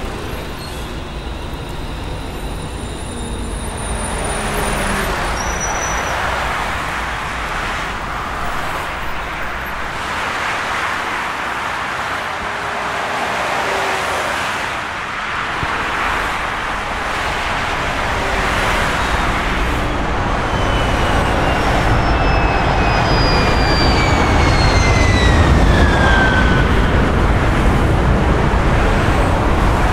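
Road traffic noise: a continuous wash of passing cars. In the second half a high whine falls slowly in pitch over several seconds, and a deeper rumble builds toward the end.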